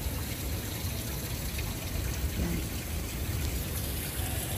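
Steady rushing outdoor noise with a low rumble, and a faint voice briefly about two and a half seconds in.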